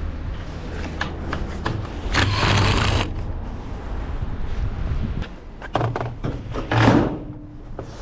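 Handling noise from taking apart a top-loading washing machine: scattered clicks and knocks of screws and plastic panel parts, with two longer rasping scrapes, one about two seconds in and one near seven seconds, over a low rumble.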